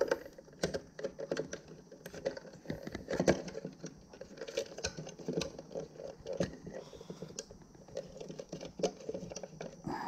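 Irregular plastic clicks, taps and light rattles as a fuel pump module's plastic housing and its corrugated hose are handled and worked into place by hand.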